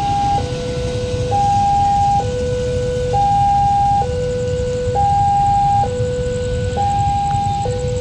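Railway level-crossing warning siren sounding a two-tone hi-lo alarm, switching between a higher and a lower pitch just under once a second, over a steady low rumble.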